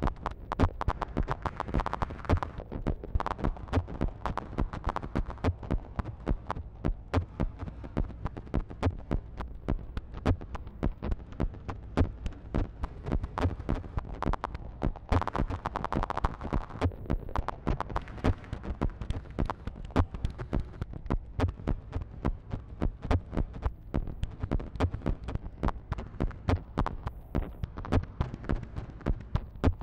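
Live modular synthesizer playing a throbbing electronic pattern: quick, regular clicky pulses over a steady low drone, with a brighter tone swelling up about halfway through.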